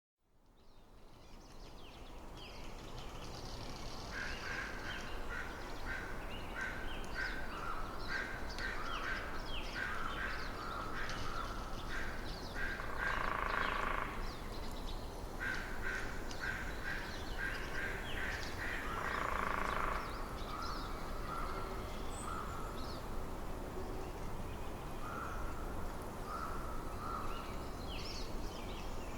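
Birds calling in a wintry forest over a steady hiss of wind: many short, quick calls, with a few longer, harsh caws about halfway through and near the end. The sound fades in from silence at the start.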